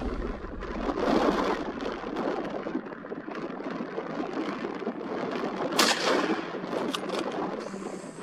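A single gunshot, a sharp crack about six seconds in, over a steady rushing noise.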